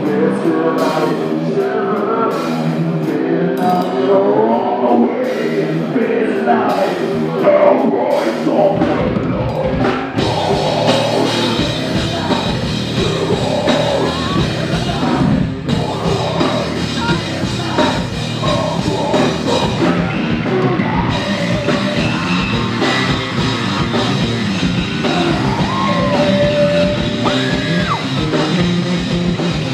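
Live heavy rock band playing loud, with singing over the guitars; the sound fills out with deep bass and cymbals about nine seconds in.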